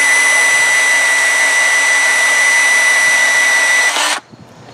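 Milwaukee cordless portable band saw running and cutting through a steel rebar on an angle, a steady high whine. The saw stops suddenly about four seconds in as the cut finishes.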